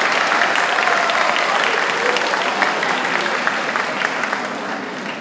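Audience applauding, a dense steady clapping that slowly fades away near the end.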